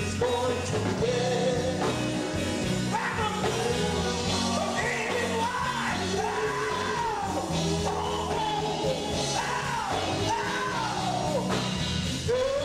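Male gospel vocal group singing live with band accompaniment. The lead voice bends and holds long notes over the group's voices and a steady low bass line.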